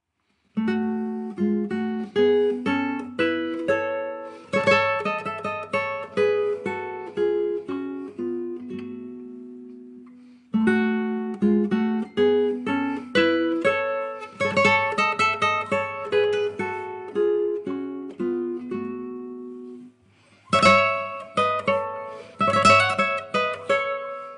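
Instrumental music on a solo plucked string instrument: a picked melody in two phrases, each ending on a held note that fades away, then strummed chords from near the end.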